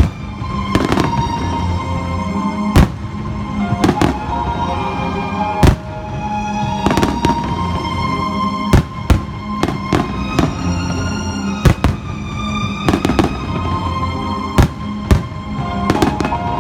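Fireworks bursting in a dozen or so sharp bangs at irregular intervals over loud music playing with the show.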